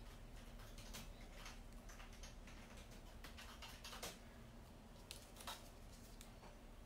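Faint rustling and light ticks of paper and card being handled and pressed down by hand, with a couple of sharper ticks about four and five and a half seconds in.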